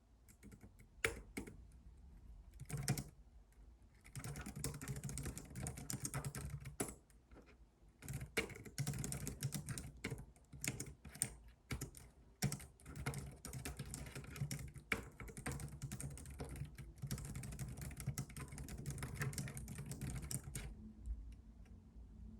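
Computer keyboard typing: a couple of single keystrokes, then fast runs of typing with short pauses, which stop shortly before the end.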